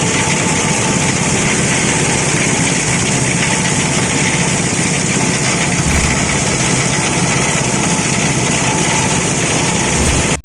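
Plastic bottle shredder machine running with a steady, loud mechanical noise.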